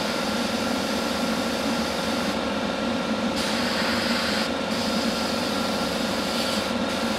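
Hobby spray booth extractor fan running with a steady hum, under the hiss of an airbrush spraying paint. The hiss breaks off briefly three times as the trigger is let go.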